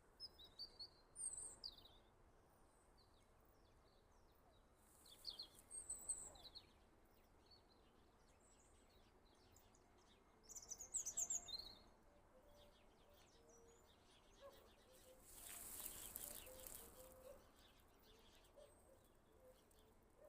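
Birds chirping in three short clusters of high, quick notes over faint forest ambience. Around fifteen seconds in, a rush of noise swells for a couple of seconds, and a few low short notes come through in the second half.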